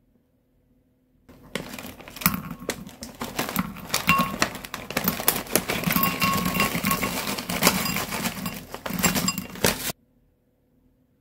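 Foil-lined snack bag crinkling as crunchy puffed-rice peanut balls are poured out, clattering into a small glass bowl with many light clicks. It starts about a second in and cuts off suddenly near the end.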